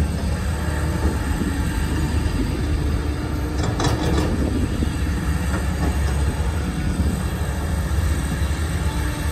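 Heavy diesel engine of a Cat 323GC excavator running steadily under work. About four seconds in there is a brief metallic clatter.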